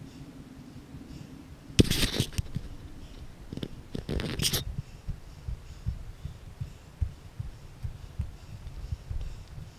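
A hiker's footsteps on sandstone, picked up by a body-worn camera as dull, irregular thumps. Two loud bursts of noise hit the microphone about two and four seconds in.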